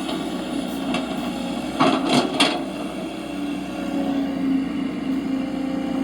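Small electric drive of a radio-controlled construction model whining steadily at one pitch, with a few quick knocks about two seconds in.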